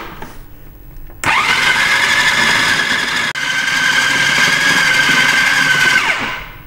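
Electric food processor starting abruptly about a second in and running steadily with a high motor whine as its blade grinds raw chicken, bread crumbs and spices into a paste. Near the end it winds down, the whine falling away.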